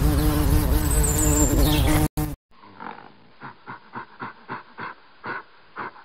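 A steady buzzing drone with a low rumble, which cuts off about two seconds in. After a short gap a flanged male orangutan makes short pulsed calls, about two a second, growing louder toward the end.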